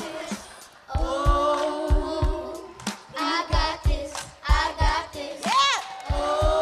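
A group of children and a woman singing a song together, with short sung phrases and a vocal run rising and falling near the end, over a low repeating beat.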